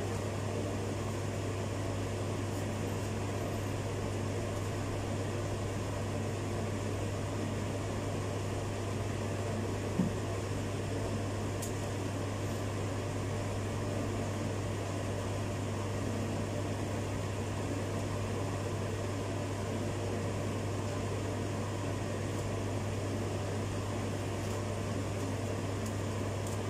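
A steady low hum with an even background hiss, unchanging throughout; a single short knock about ten seconds in.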